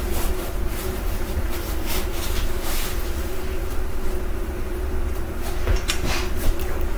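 A steady low mechanical hum, with a couple of short clicks or knocks about six seconds in.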